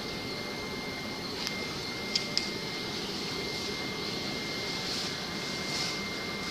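Steady hum and hiss of running aquarium equipment (air pumps and filters), with a thin high whine throughout and two light clicks about two seconds in.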